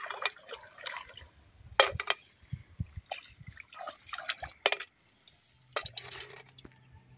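Shallow water splashing and dripping in short irregular bursts as hands pick through a flooded rice paddy and a water-filled metal bucket, with a few sharp clicks about two seconds in and near five seconds.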